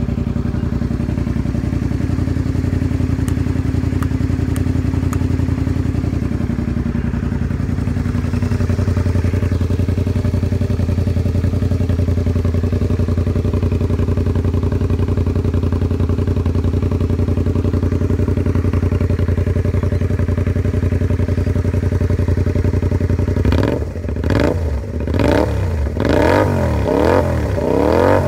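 Honda VTR250's V-twin engine idling steadily through a megaphone shorty slip-on exhaust while it warms up after a cold start. Near the end the throttle is blipped in a quick series of short revs, each rising and falling.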